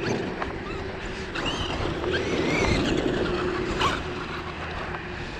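Traxxas X-Maxx 8S RC truck running on dirt: the brushless motor and drivetrain whine, rising and falling in pitch as the throttle is worked, over a steady rush of noise. A few sharp knocks, the clearest about four seconds in.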